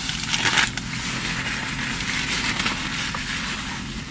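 Crunching and crackling as a crispy fried chicken sandwich with fried jalapeño chips is bitten into and chewed, loudest in a short burst about half a second in.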